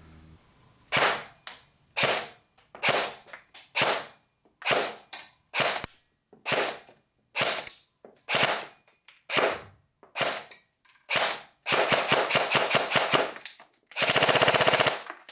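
VFC VR16 Tactical Elite 2 airsoft electric gun (AEG) firing 6 mm BBs through a chronograph: a string of single semi-auto shots, a few a second, then two short full-auto bursts near the end at about 16 rounds a second, the last with a gearbox whine. The gearbox runs a cut-down spring on a 7.4 V LiPo.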